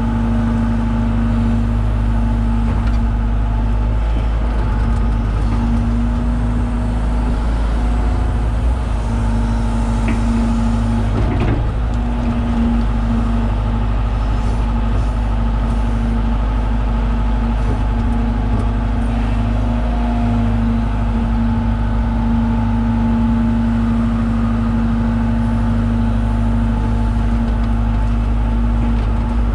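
John Deere 190E excavator's diesel engine running steadily while digging, a loud even drone with a strong low hum.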